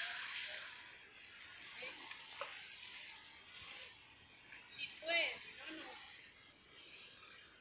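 Steady high-pitched chorus of insects, a continuous shrill band, with two short rising-and-falling voice-like calls about five seconds in.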